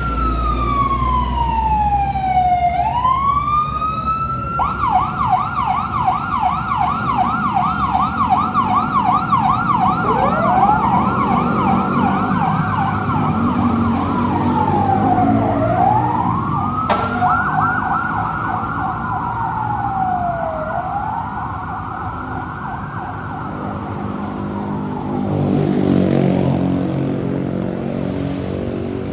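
Emergency vehicle sirens: one slides down and back up in a slow wail, then switches to a fast yelp for about ten seconds. A second siren overlaps it with a slow rising and falling wail. The sirens fade out about three quarters of the way through, leaving engine and traffic noise, with a vehicle passing near the end.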